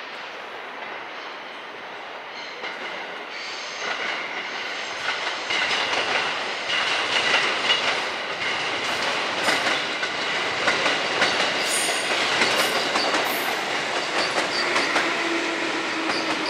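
Railway cars rolling past on the rails, wheels clattering over rail joints with some high wheel squeal, growing louder from about four seconds in.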